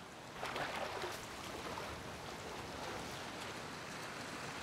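Sea water washing in the surf: a steady rush of water that swells about half a second in.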